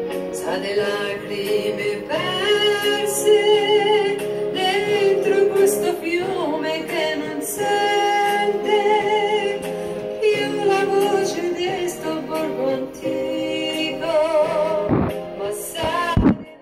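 A woman singing an Italian song with a wide vibrato over a steady accompaniment. Two dull bumps come near the end.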